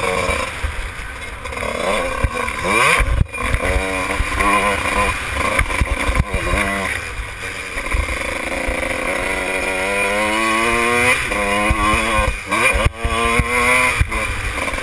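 Kawasaki KX125 two-stroke single-cylinder motocross engine under load while being ridden. The note rises again and again as the throttle is opened through the gears, with brief cuts about three seconds in and near the end.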